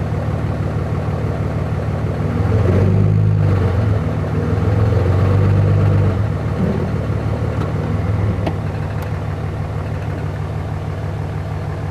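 2004.5 Dodge Ram 2500's 5.9-litre Cummins inline-six turbodiesel running in reverse, getting louder for a few seconds about a quarter of the way in and then settling. Its knock appears only with the engine in gear under load and goes away at idle in park; the owner suspects a rod knock.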